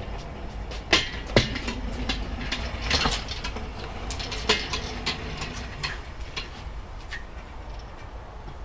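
Small wheels of a cart carrying an engine rolling along with a low steady rumble, with several clunks and rattles along the way.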